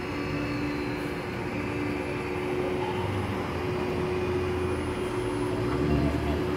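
Buses running at a bus stand: a steady mechanical hum with two held tones, and a low rumble that builds from about three seconds in and is loudest near the end.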